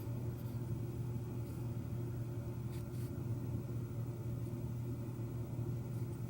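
A steady low background hum, with a couple of faint small clicks about three seconds in.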